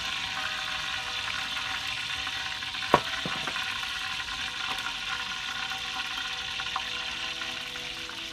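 Steady sizzling hiss from a cooking pot on a wood fire, with one sharp crack about three seconds in.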